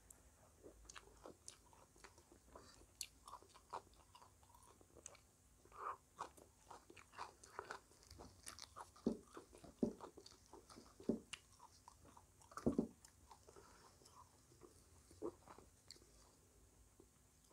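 Close-up crunching and chewing of crisp fried pastry, irregular sharp crackles as pieces are bitten and chewed, loudest in a run of crunches in the middle.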